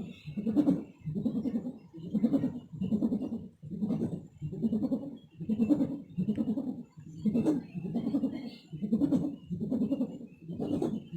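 A 4-metre 'ngukuk' sendaren, the bow-shaped hummer on a large flying kite, sounding in the wind. It gives an unbroken string of rising-and-falling 'ngukuk' pulses, a little faster than one a second.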